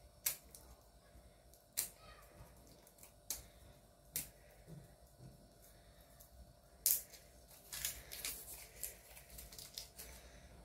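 Maggi seasoning cubes handled and crumbled by hand: a few sharp clicks, then a run of faint crackling ticks near the end.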